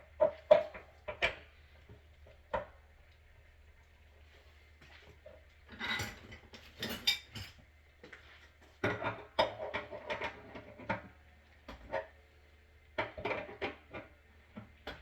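Metal tools and plumbing fittings clinking and clattering in irregular clusters of sharp knocks while water heater connections are worked on, over a faint steady low hum.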